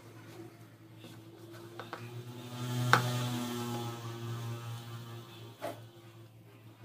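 A steady pitched hum that swells for a couple of seconds in the middle, with a sharp click about three seconds in and another near the end. Under it are soft sounds of hands kneading ragi flour and drumstick-leaf dough in a plastic bowl.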